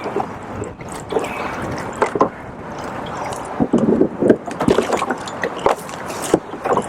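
Fast river current gurgling and slapping against a boat's hull, with scattered sharp knocks and clicks and a louder splashing stretch about four seconds in.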